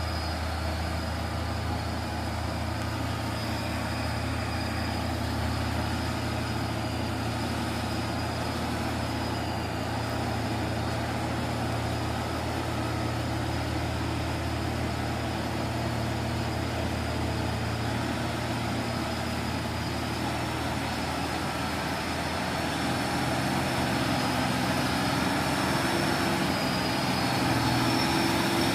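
Heavy truck's diesel engine running steadily. Its low note shifts a little after about twenty seconds and it grows somewhat louder near the end, with a thin high whine above it throughout.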